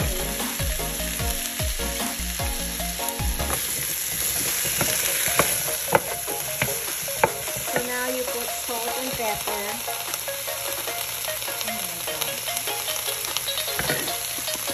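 Kabocha squash and okra sizzling as they are stir-fried in a pan, with a wooden spatula scraping and tapping against the pan; a few sharper taps stand out midway.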